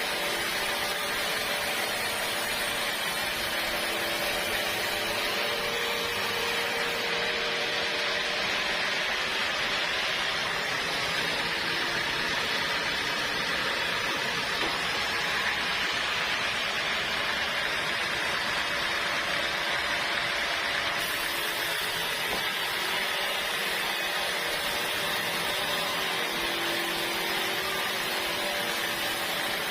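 Sawmill saw running steadily: a continuous rushing machine noise with faint humming tones beneath, unchanging in level.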